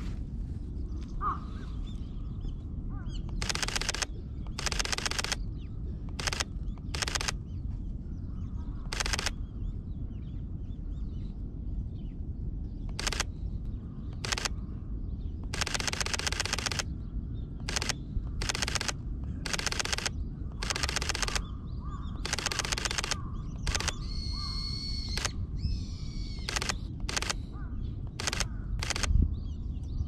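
Sony A7III camera shutter firing in bursts: about eighteen runs of rapid clicks, some single short bursts and several held for over a second. About three-quarters of the way through, a bird call lasts about two seconds, over a steady low rumble.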